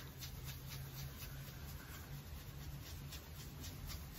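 Faint, quick soft brushing strokes, about four a second, as the bristles of a large round makeup brush (Morphe M530) buff powder bronzer across the skin of the forehead in circular motions. A low, steady hum sits underneath.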